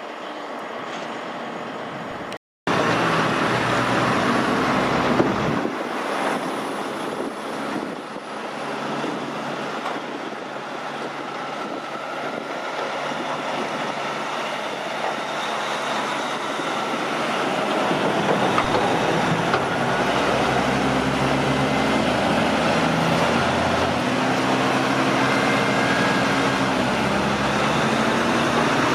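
Heavy truck's diesel engine running loudly, with a short break about two seconds in. Later the engine note steps up and down several times.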